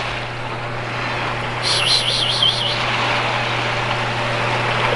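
Small waves washing onto a sandy shore, over a steady low engine hum. About two seconds in there is a brief high warbling whistle.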